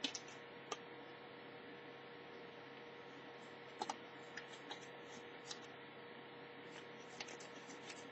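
Small scissors of a Ridge Runner mini multitool snipping in a cutting test: faint, scattered clicks, with a quick double click about four seconds in.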